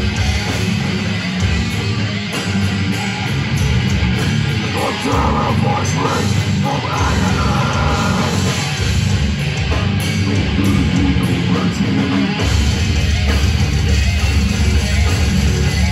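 Death metal band playing live: loud distorted electric guitars and drums, dense and unbroken. About twelve seconds in the low end gets heavier and fuller.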